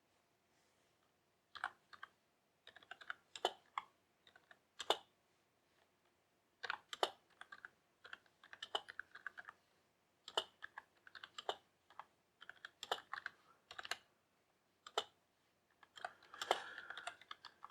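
Typing on a Sumvision Seeker Destroyer 60% mini gaming keyboard: irregular bursts of key clicks with short pauses between them, starting about a second and a half in, with a quicker flurry near the end.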